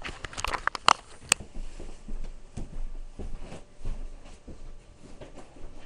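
A quick run of sharp clicks and knocks, the loudest about a second in, then faint scattered ticking and rustling, like small objects being handled.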